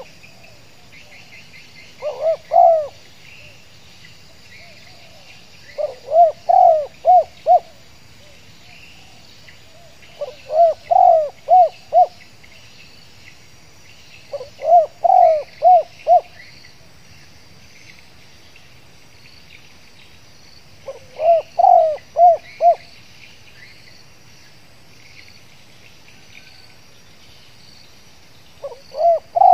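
Spotted dove (tekukur) cooing in repeated phrases of three to five quick coos, one phrase every four to six seconds, with a faint steady insect chorus behind.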